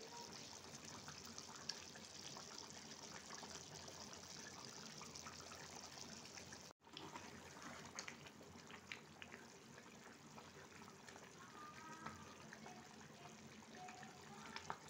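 Faint simmering of a thick curry gravy bubbling in a pan, a steady hiss with small pops. After a brief gap about seven seconds in, a spatula moves through it with a few light taps and scrapes against the pan.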